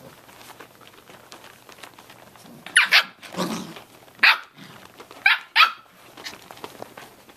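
Samoyed puppies, about six weeks old, barking at each other in play: about six short, high-pitched yips in quick succession starting about three seconds in.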